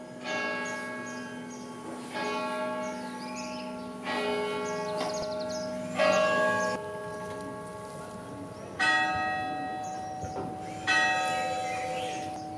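Church bells tolling: six slow strokes about two seconds apart, each ringing on and fading, the last two higher-pitched than the first four.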